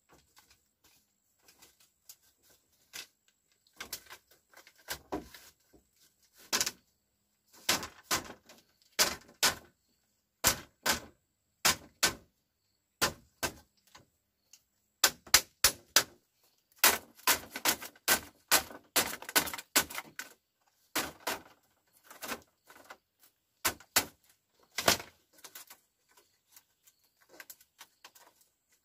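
Irregular sharp knocks and clicks, coming in quick clusters and densest around the middle.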